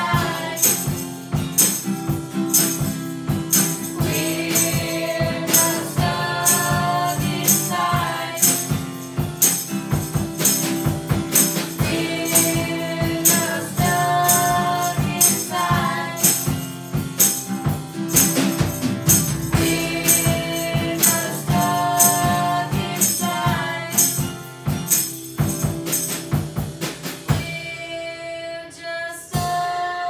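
Several voices singing together to a strummed acoustic guitar, over a steady beat of sharp strokes. Near the end the strokes stop and a final note is held.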